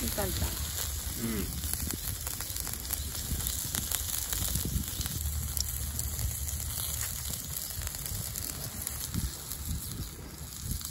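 Charcoal crackling under a grill rack while sausages and vegetables sizzle, with many small pops throughout and a low wind rumble on the microphone.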